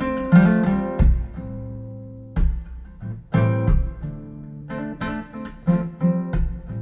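Acoustic guitar music with no singing: chords plucked and strummed at irregular intervals, each struck sharply and left to ring out.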